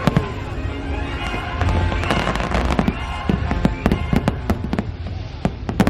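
Fireworks bursting in a rapid series of sharp cracks and pops, coming thicker toward the end, over the show's soundtrack music.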